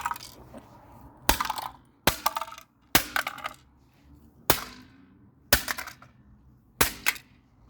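Six sharp blows on a plastic toy cash register, landing roughly a second apart, some followed by a brief clattering ring as it breaks apart.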